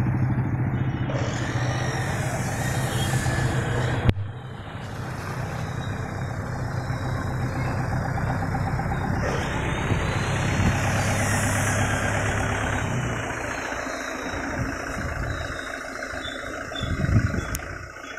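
A vehicle engine idling with a steady low hum that fades about thirteen seconds in. There is a sharp click about four seconds in and a brief louder noise near the end.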